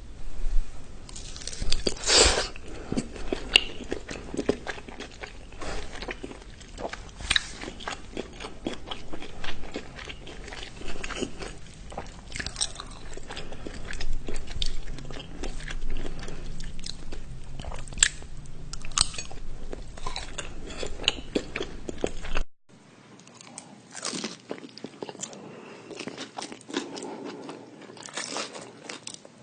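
Close-miked eating: a person biting and chewing crunchy food, with many sharp crunches and wet mouth clicks.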